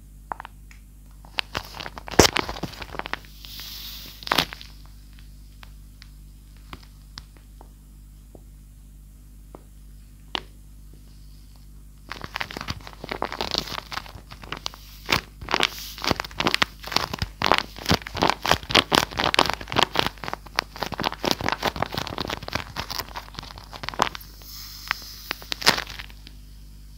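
Paper squishy shaped like a matcha Pocky stick being squeezed and handled, its paper crinkling and crackling with a crisp sound. A few crackles come at the start, then scattered ticks, and from about twelve seconds in a dense run of quick crackles that stops near the end.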